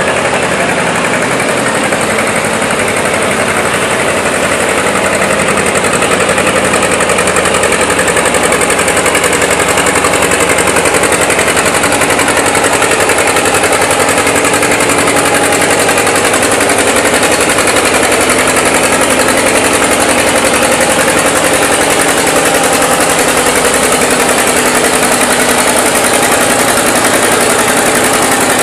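Old farm tractor engine running steadily under load as it drags a weight-transfer pulling sled. It grows a little louder over the first several seconds, then holds steady.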